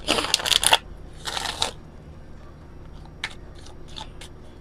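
Oracle card deck being shuffled by hand: two brief rasping bursts of cards sliding against each other in the first second and a half, then a few light clicks and taps of cards later on.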